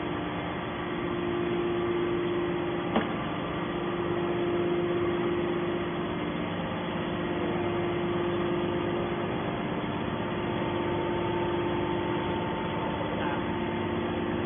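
Hydraulic baler's motor and pump running with a steady, even hum. A single sharp click comes about three seconds in.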